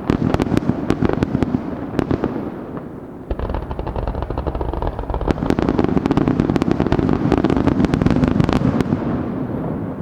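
Fireworks display: a dense, rapid volley of sharp bursts and crackles. It eases briefly about three seconds in, then a second heavy barrage starts abruptly and fades out near the end.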